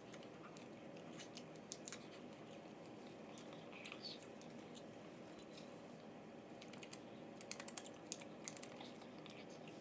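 Near quiet, with faint scattered clicks and ticks, more of them near the end: mouth noises of a person chewing and swallowing a scrap of paper.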